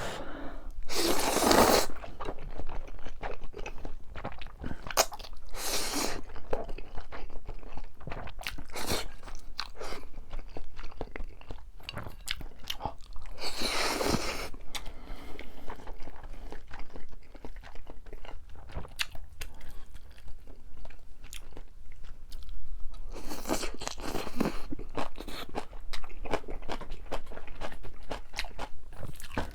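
Close-miked eating: steady chewing and crunching of Chapagetti noodles and green-onion kimchi, with many small wet clicks, and three longer, louder noisy stretches about a second in, midway and near the end.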